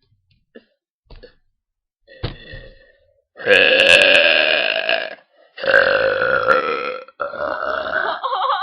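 A girl's deliberate, forced burps, brought up from swallowed air: three long, loud belches in close succession, starting about three seconds in.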